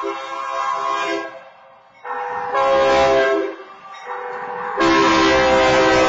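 Union Pacific diesel locomotive's air horn sounding the long-long-short-long grade-crossing signal. A long blast ends about a second in, a second long blast starts about two seconds in, a short blast comes near four seconds, and the final long blast starts near five seconds. The locomotive's rumble rises under the final blast as it reaches the crossing.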